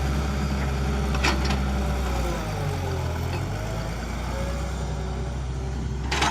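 Diesel engine of an excavator running steadily with a low hum. Its note shifts briefly around halfway, and a faint whine rises and falls above it.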